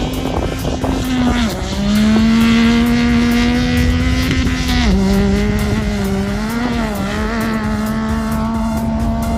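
Dune buggy engine running steadily under throttle, its pitch stepping down about a second and a half in and again about five seconds in, with a brief rise and fall near seven seconds, over low rumble from the ride.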